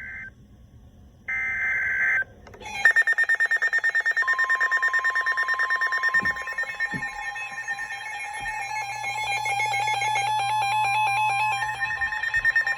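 NOAA Weather Radio alert tones received on a Red Cross weather radio. Brief warbling SAME data bursts come first. Then the radio's own alarm starts beeping in a rapid pulse, and from about four seconds in the steady 1050 Hz warning alarm tone sounds under it, heralding a Special Marine Warning.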